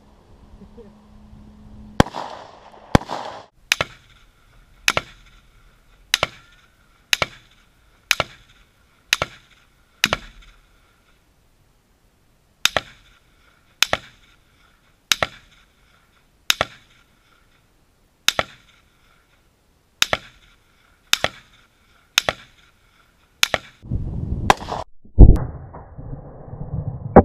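Rifle fired in single shots at a steady pace, about one a second, in two strings with a short pause between them. Near the end come a louder, rougher stretch of noise and a few more shots.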